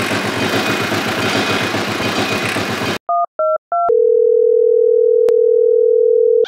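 A tractor engine running with a rapid, even chug that cuts off about three seconds in. Then come three short two-tone telephone keypad beeps and a steady telephone dial tone.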